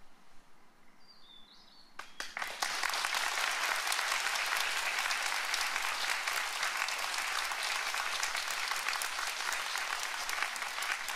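Audience applause in a concert hall. After a short hush it begins with a few scattered claps about two seconds in, then swells quickly into steady, full applause.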